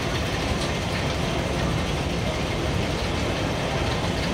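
Steady mechanical rumble and hiss of a moving escalator, with the echoing hall noise around it.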